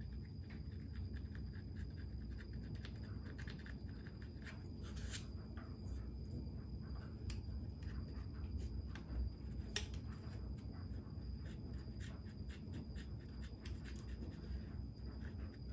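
Razor blade shaving burrs off a motorcycle's plastic panel: many short, irregular scratching strokes, over a low steady hum.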